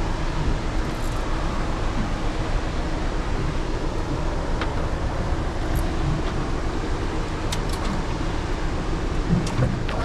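A boat's motor idling steadily, with a low rumble and hiss. Near the end come a few short, sharp splashes as a hooked fish thrashes at the surface beside the boat.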